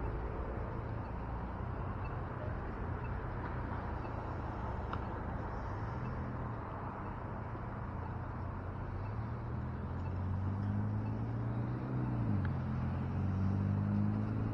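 City street traffic: steady road noise of passing cars, with a low engine hum that rises and falls in pitch from about six seconds in and grows louder near the end.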